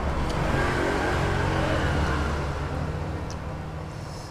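A motor vehicle's engine running with a low, steady drone that fades away as it passes.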